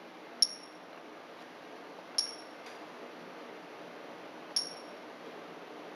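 Three short high-pitched beeps with a click, about half a second, two seconds and four and a half seconds in: the key tones of a Jeti DS-16 radio-control transmitter as its menu buttons are pressed.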